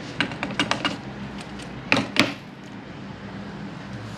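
Light clicks and knocks of small metal parts being handled: a quick run of clicks, then two louder knocks about two seconds in.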